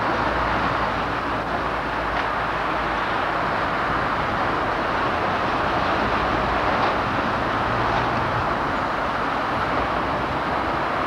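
Electric tram running along the tramway: a steady rolling noise with a low hum under it and a few faint clicks.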